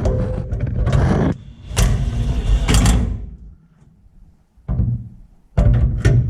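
Impact wrench run in four short bursts, each a second or so long, tightening bolts.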